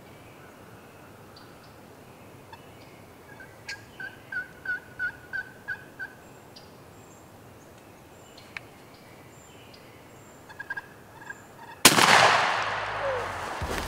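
Wild turkey yelping in a run of about eight evenly spaced notes, then a few short soft clucks. About 12 seconds in, a single shotgun blast, much the loudest sound, with a long echoing decay.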